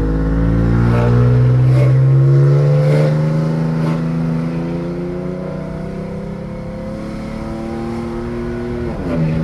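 Vehicle engine accelerating, its pitch climbing slowly and steadily, then dropping sharply about nine seconds in as it shifts up a gear.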